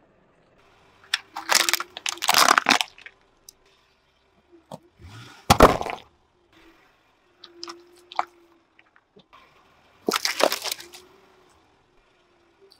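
Objects cracking and breaking under a car tyre as it rolls over them: a pair of crunching bursts about two seconds in, a sharp crack with a low thud around five and a half seconds as a clay pot breaks apart, and another crunch about ten seconds in. A faint steady hum sits underneath between the breaks.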